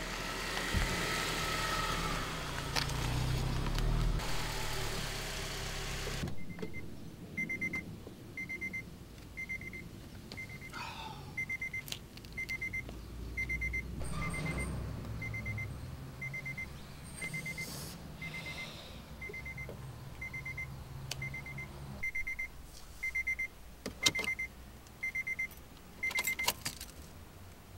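Street and traffic noise for the first few seconds. Then a car's warning chime takes over: one short high beep about once a second while the door stands open, with a few clicks and a sharp knock. The chime stops shortly before the end.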